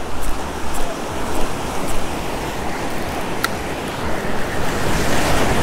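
Surf washing over shoreline rocks with wind on the microphone, swelling near the end as a wave comes in. For the first two seconds there is a faint regular ticking, about two ticks a second, from the spinning reel being cranked.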